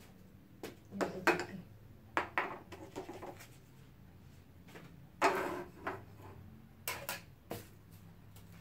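Two white three-compartment serving trays being set down and shifted on a table: a string of light knocks and clatters, the loudest about five seconds in.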